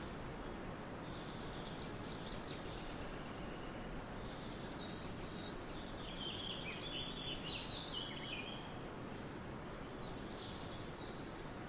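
Songbirds singing in short, chirping phrases over a steady rushing background noise, the song busiest in the middle.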